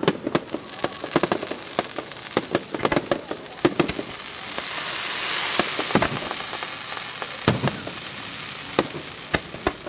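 Aerial fireworks going off: a quick, irregular string of sharp bangs, with a hissing swell of crackle building up and fading in the middle, then a few scattered single bangs near the end.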